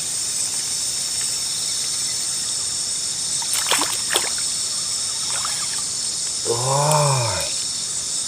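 Night insects, crickets among them, trilling steadily in a high-pitched chorus. About three and a half seconds in comes a brief cluster of sharp scrapes or splashes.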